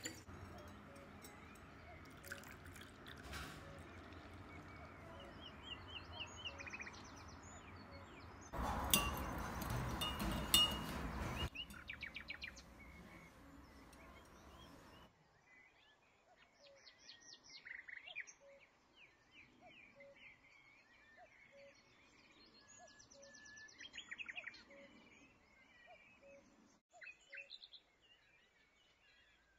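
Small birds chirping and trilling on and off throughout, with a few spoon clinks against a ceramic cup at the start. About a third of the way in, a loud rushing noise lasts about three seconds.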